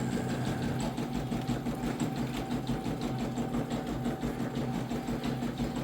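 Home embroidery machine stitching: a steady motor hum with the rapid, even clatter of the needle.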